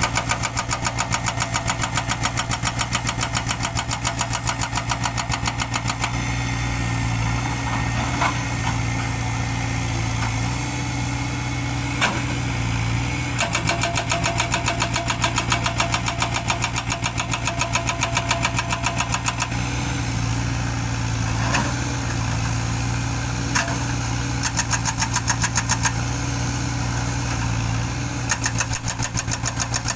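Heavy construction machine's diesel engine running steadily with a fast, even pulse, with a few sharp clanks scattered through.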